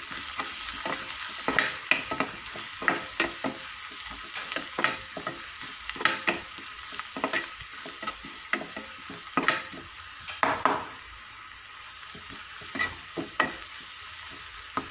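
Onion-tomato masala with red chilli powder frying in a kadhai, a steady sizzle under a spoon stirring it. The spoon scrapes and knocks against the pan in quick, irregular strokes, with a few louder knocks and a short lull about eleven seconds in.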